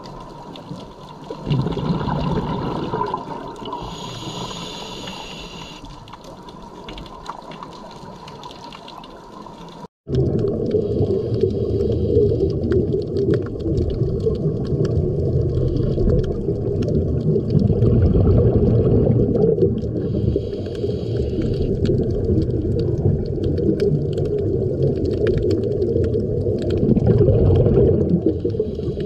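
Underwater sound as heard by a diver's camera: a steady low rumble, with bursts of exhaled scuba regulator bubbles coming back every several seconds. There is a brief dropout about ten seconds in, after which the rumble is louder.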